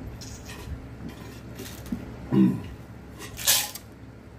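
A man gulping down a glass of drink in swallows, with a short low throaty sound about halfway through and a breathy exhale near the end.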